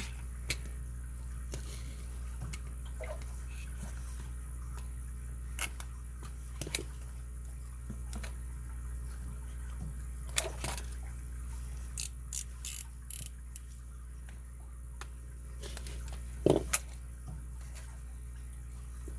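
Scattered sharp metallic clicks and knocks from handling a heavy padlock and metal tools, with a quick run of five clicks about twelve seconds in and a solid knock near the end, over a steady low hum.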